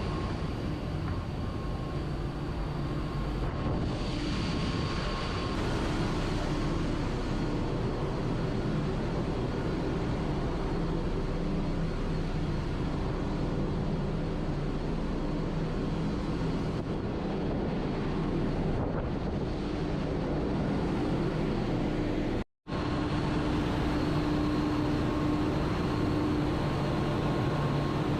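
Steady machinery din of a tanker ship's engine room, a dense hum with a few constant tones running through it. It drops out for an instant about three-quarters of the way through, then carries on.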